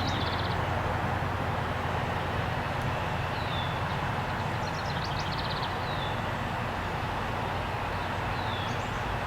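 Steady background hum and hiss, with a small bird calling a few times over it: short rapid trills and brief falling chirps, every two to three seconds.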